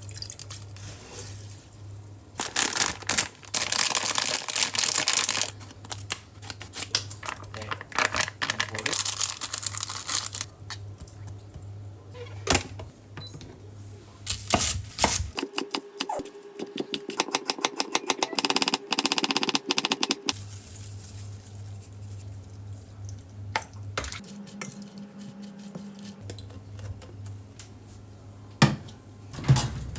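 Kitchen preparation sounds: tap water running in two bursts, scattered knocks and clinks, then a quick run of clicks lasting several seconds, over a steady low hum.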